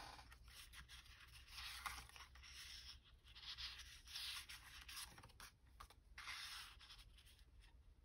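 Faint rustling and rubbing of paper being handled, in several short spells.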